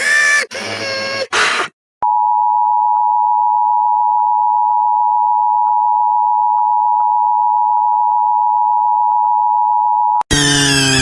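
Emergency Alert System attention tone: a steady electronic tone just under 1 kHz held for about eight seconds. It is preceded by three short robotic electronic bursts, and near the end a buzzy synthetic tone starts sliding downward in pitch, a 'dying robot' effect.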